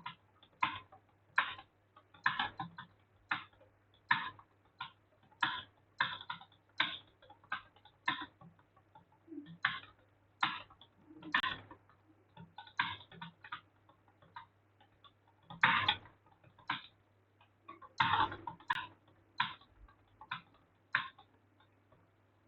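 Computer keyboard keys being struck in touch typing during a speed test, an irregular run of sharp clicks with some quick clusters, stopping shortly before the end.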